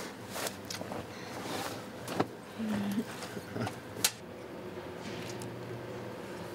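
Two people kissing close up: a few sharp lip smacks and the rustle of clothing over a steady low hum.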